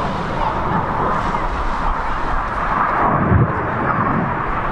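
BAE Hawk T1 jet aircraft flying past at a distance: a steady jet roar.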